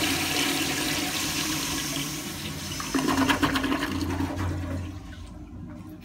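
An old American Standard tankless toilet, fed by a wall valve, flushing: water rushes into the bowl, surges again about three seconds in, then dies down near the end.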